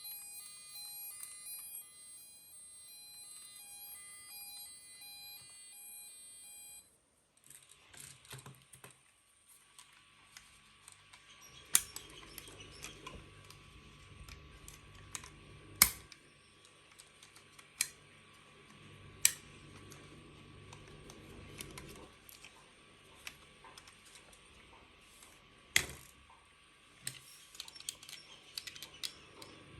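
A toy's electronic siren tune of repeating beeps, cutting off about seven seconds in. Then small toy cars are handled and run along a track, with a low hum, light clattering and several sharp plastic clicks.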